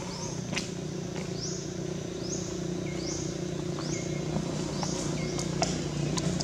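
Outdoor ambience: a high-pitched call repeats about once a second, each note rising briefly and then held, over a steady low hum, with a few faint taps.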